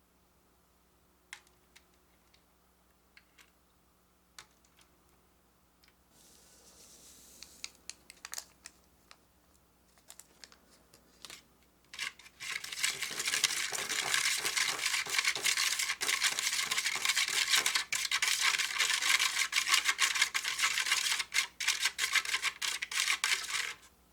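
Small plastic candy-kit pieces handled with scattered light clicks and taps. About halfway in, a steady, dense, scratchy scraping begins, a spoon working a mixture in the kit's plastic tray, and it stops suddenly near the end.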